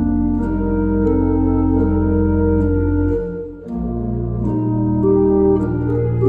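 Pipe organ playing held chords over long, low bass notes, with a short break between phrases about three and a half seconds in.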